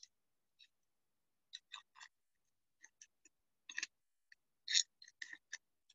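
Trading cards being handled: a scatter of short, sharp rustles and clicks, irregularly spaced, the loudest a little over a second before the end.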